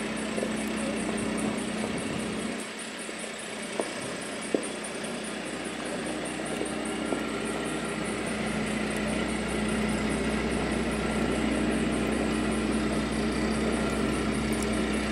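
Steady hum of a running motor or engine, with a constant low tone, growing slightly louder about nine seconds in; two faint ticks around four seconds in.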